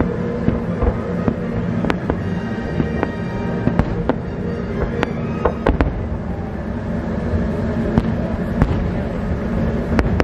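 Fireworks going off: sharp bangs and pops at irregular intervals, several close together at times, over music playing underneath.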